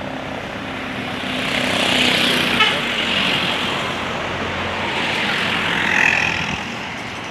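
Parked coach's diesel engine idling, with road traffic passing that swells twice, about two seconds in and again about six seconds in.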